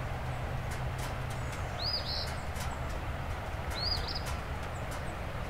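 Steady rushing noise of a flooded creek running over its banks, with a bird giving a short arching call twice, about two seconds apart.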